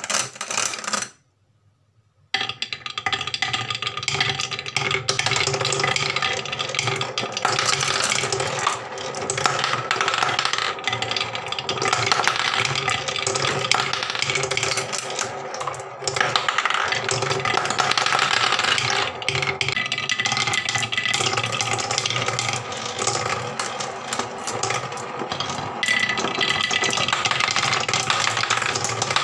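Small balls rolling and clattering down a wooden marble run: a short rattle, a second's pause, then a dense, unbroken clatter of balls knocking against wooden track pieces and pegs. Near the end, balls whirl round a wooden funnel bowl.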